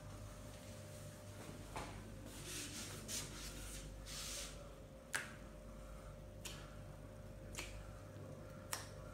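Massage sounds: hands brushing over skin or hair in a few rubbing strokes, and five sharp clicks or slaps, the loudest about five seconds in, over a steady faint hum.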